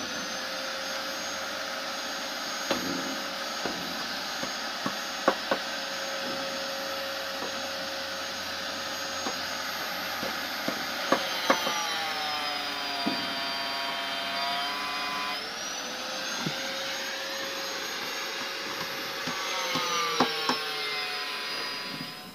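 A power tool motor running with a steady high whine. Its pitch sags for about three seconds midway, then rises back. Scattered sharp clicks sound over it, and it cuts off at the very end.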